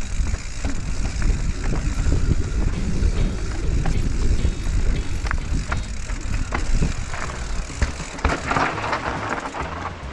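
Radon Swoop enduro mountain bike rolling fast down a dirt singletrack: tyres crunching over dirt and stones, with frequent clicks and rattles from the bike over bumps, and wind rumbling on the helmet camera's microphone. About eight seconds in, a louder hissing scrape of tyres on loose ground.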